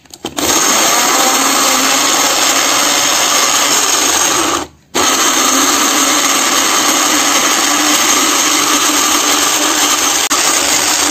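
Small electric blender grinding shallots, garlic, salt and fried spices into a spice paste: a loud, steady motor whine with the chopping of the blade through the ingredients. It runs in two goes: it starts about half a second in, stops briefly around the middle, then starts again and runs on, its hum rising slightly in pitch near the end.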